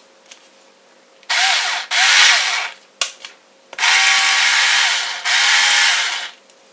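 Interskol OA-3.6 cordless screwdriver motor spinning an empty KWB keyless drill chuck adapter in four short runs, two back to back about a second in and two more after a sharp click near the middle. Each run has a whine that rises as it starts and falls as it stops.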